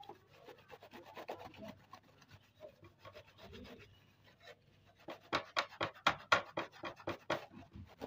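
Brush scrubbing the soapy, foam-covered painted metal body of a rusty Singer sewing machine in quick back-and-forth scratchy strokes. The strokes grow louder from about five seconds in, at roughly four a second.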